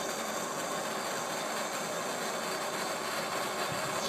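Handheld gas blowtorch flame hissing steadily while it heats a copper elbow joint for soldering.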